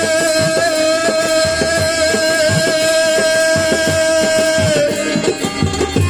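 Live Bengali folk song: a long high note held for nearly five seconds, then dropping off, over a quick percussion rhythm and banjo.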